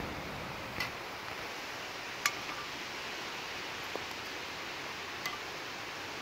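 A few light, sharp clicks of metal tongs against a plastic bowl as pieces of fried bacon are dropped into soup, over a steady background hiss.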